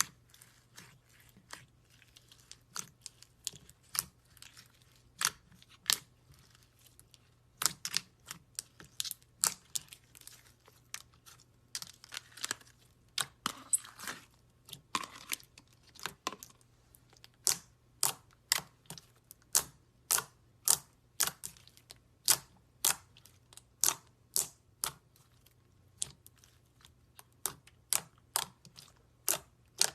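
Slime being pressed and played with by hand, making a long run of sharp wet pops and clicks, about one or two a second, with a denser crackling stretch near the middle.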